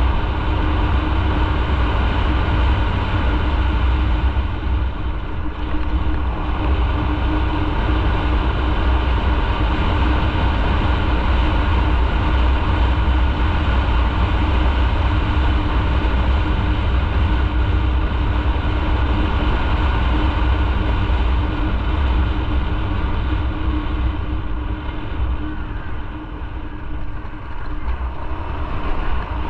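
Motorcycle riding at a steady speed, its engine hum over a heavy rumble of wind and road noise; it eases off briefly near the end.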